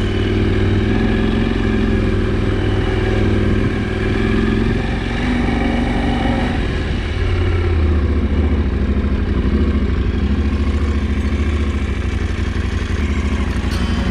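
KTM 790 Adventure's parallel-twin engine running steadily as the motorcycle is ridden, with a brief dip in engine speed about four to seven seconds in.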